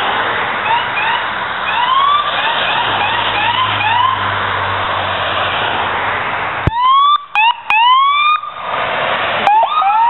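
Police sirens on passing chase vehicles, giving repeated short rising whoops over the rush of passing traffic. The sound breaks off abruptly twice, with louder whoops after each break.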